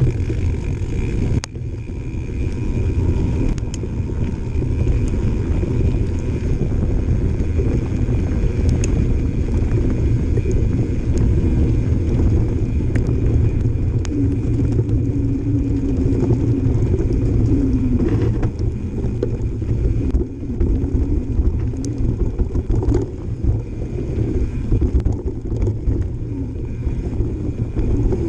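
Mountain bike riding down a dirt trail: tyres rolling and crunching over the ground with a loud wind rumble on the microphone, scattered knocks and rattles from bumps, and the rear freehub buzzing while the rider coasts.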